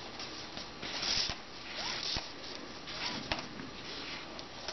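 Thin micro cord being pulled through the knots of a cobra-weave paracord bracelet: short zipping, rustling swishes, with a few light clicks from handling the cord.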